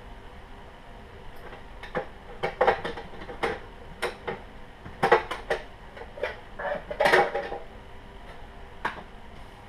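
Small metal tools clinking and clattering as they are handled and set down: a run of sharp clinks from about two seconds in until near the end.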